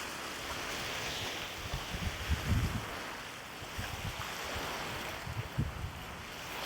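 Wind on a lake shore: a steady rush of wind and lapping waves, with gusts buffeting the microphone about two seconds in and again near the end.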